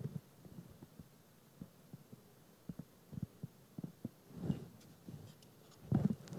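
Soft, irregular low thumps and handling noise while frosting is squeezed from a piping bag onto a cake, with the strongest thumps about halfway through and near the end.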